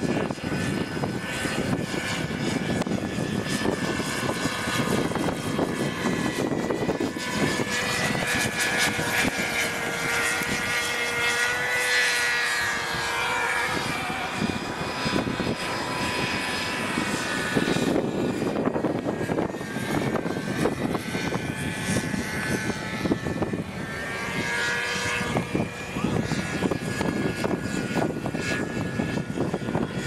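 Glow-engine RC helicopter flying, its engine and rotor whine rising and falling in pitch as it manoeuvres, with strong wind buffeting the microphone.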